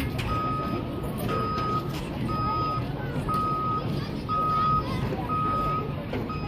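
Vehicle reversing alarm beeping: one steady high tone, about half a second on and half a second off, roughly once a second, over steady background noise.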